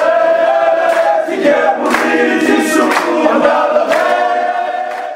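A group of men singing together in harmony, clapping their hands roughly once a second, fading away near the end.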